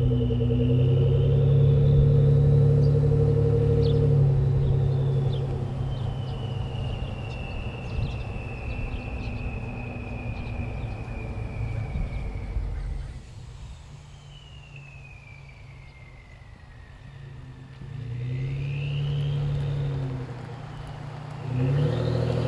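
A Ford F-150 3.5L EcoBoost twin-turbo V6 with an aftermarket turbo whistle package and stainless cat-back exhaust. Its exhaust rumbles loudly at first, then fades, while a high turbo whistle slowly falls in pitch. The whistle comes back and rises each time the engine picks up again, briefly about two-thirds of the way through and again at the end.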